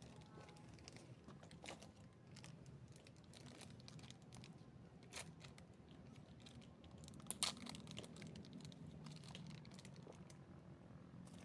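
Near silence with faint, scattered crackles and clicks, and one sharper click about seven seconds in.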